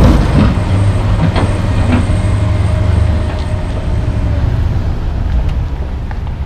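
John Deere 470G track excavator's diesel engine running steadily under load, with a few metallic knocks and scrapes in the first two seconds as the bucket works the dirt, then a steadier engine rumble as the boom lifts.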